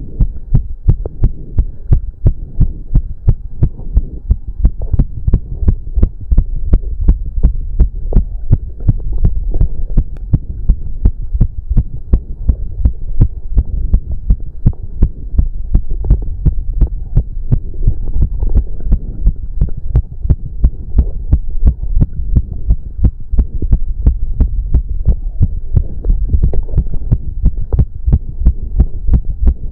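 A man's heartbeat, fast from cardio exercise, at about two beats a second, each beat a deep thump over a steady low hum.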